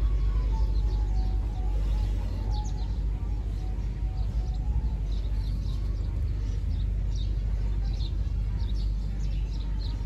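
Small birds chirping: short high chirps scattered throughout, over a steady low rumble.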